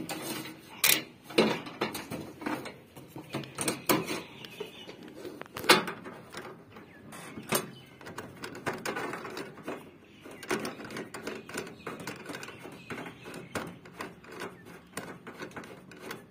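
Irregular clicks, taps and knocks of hand work on copper refrigerant pipe fittings while the lines are connected to a tower AC's outdoor unit, with one louder knock a little over five seconds in.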